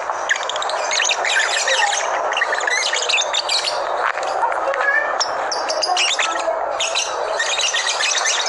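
A flock of small cage birds chirping and chattering together, many short, overlapping calls with no pause.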